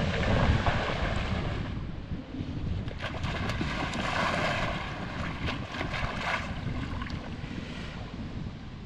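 A dog splashing as it runs through shallow lake water, loudest about four seconds in. Under it is a steady low rumble of wind and water on the microphone.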